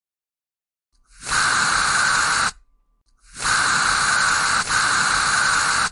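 Gas hissing out under pressure in two long bursts with a short break between them, the second burst longer than the first.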